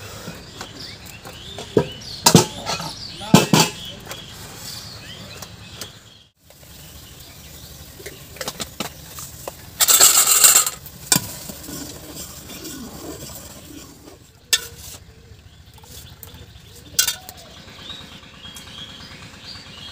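Stainless-steel dishes, pots and cups clanking and clinking as a pile of them is handled, with a few sharp clatters in the first four seconds. About ten seconds in comes a loud hiss lasting about a second.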